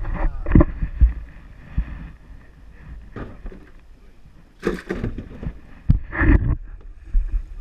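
Knocks and thumps against a small fibreglass boat's hull and deck as a speared grouper is handled aboard. There are a few sharp knocks in the first second and louder clattering bursts about five and six seconds in.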